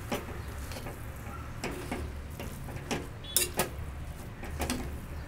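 Steel spoon stirring grated carrots in a steel kadhai, knocking and scraping against the pan in irregular sharp clicks, over a steady low hum.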